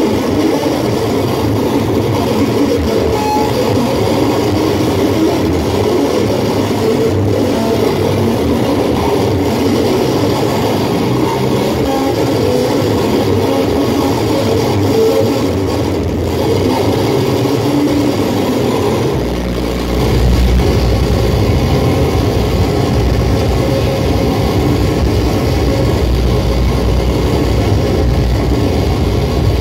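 Live experimental noise music through a PA: a dense, churning wall of sound with no beat. About 19 seconds in, a heavy low bass drone comes in under it and holds.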